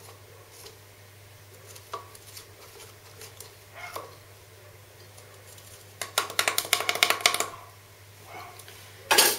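A stick stirring a wet salt-and-water mixture in a small container, with faint scattered scrapes and clicks, then a quick rattling run of clicks about six seconds in. A short loud noise comes near the end.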